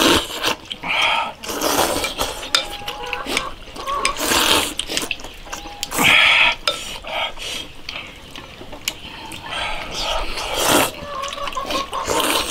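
Eating from bowls: chopsticks and bowls clinking, with wet slurps of noodle soup coming in short repeated bursts.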